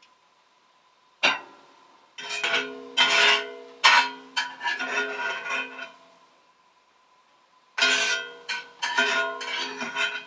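Metal spatula and tongs scraping and knocking against a cast iron skillet as the last vegetables are scooped out, the pan ringing after the strikes. The sounds come in a few irregular clusters with short quiet gaps.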